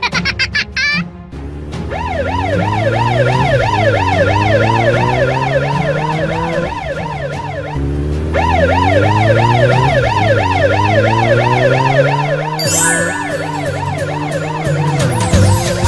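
Police car siren wailing rapidly up and down, about three cycles a second, over a vehicle engine revving in long rising sweeps that drop back and climb again. A short rising whistle comes at the very start.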